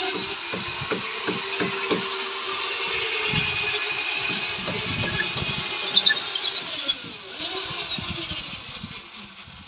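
Boatyard ambience: a steady machine hum with irregular low thumps, and a bird's quick run of high chirps about six seconds in.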